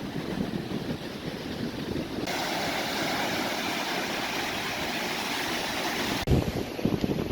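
Surf washing on the beach, a steady hiss that swells about two seconds in, with wind buffeting the microphone. The sound changes abruptly near the end, where the low wind gusts grow louder.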